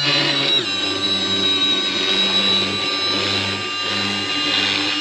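Milwaukee orbital detail sander running steadily with a high motor whine, its 80-grit paper sanding tear-out off the cut wood edges.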